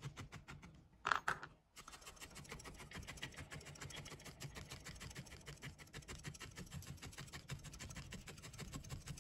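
Barbed felting needle in a pen-style holder stabbing repeatedly into wool roving, a rapid, even run of soft punches as a small tuft of wool is felted onto the face of a wool figure. A brief louder sound breaks it about a second in.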